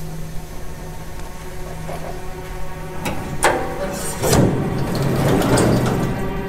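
Lift doors closing: a few sharp clicks about three seconds in, then a short sliding rush as the doors shut, over a steady electrical hum.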